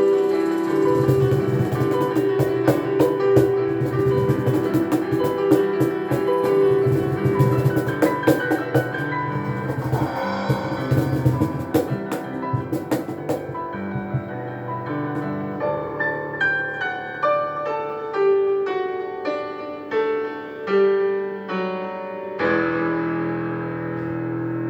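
Street piano playing with percussion struck along to it through the first half; about halfway the percussion stops and the piano carries on alone with separate, spaced notes.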